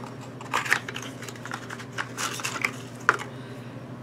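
Scattered light clicks and rustles of a small plastic cosmetics tube and its box packaging being handled, in an irregular series.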